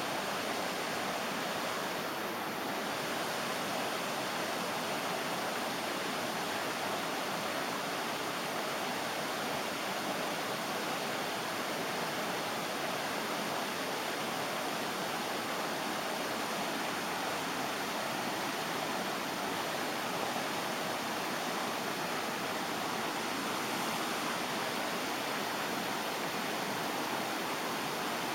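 Water rushing steadily over a small river weir, an even, unbroken roar of falling water.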